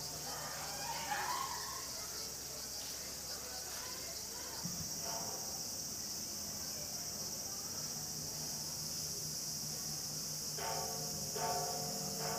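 A steady high-pitched insect chorus that grows a little louder about halfway through. A few short pitched calls cut across it, once near the middle and twice near the end.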